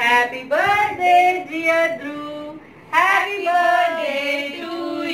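A woman's singing voice holding long notes that slide from pitch to pitch, with a short break just before three seconds in.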